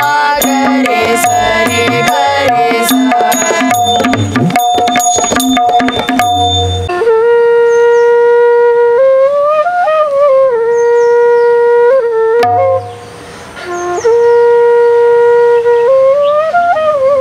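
Carnatic devotional ensemble with tabla and held melody notes ends in a flurry of drum strokes; then a bamboo flute plays alone, slow long-held notes with sliding ornaments, in two phrases split by a short pause.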